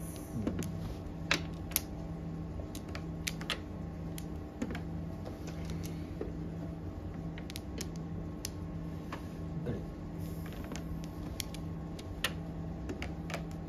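Mahjong tiles clicking as they are drawn and discarded onto the table, a dozen or so sharp clicks at an irregular pace, over a steady low hum.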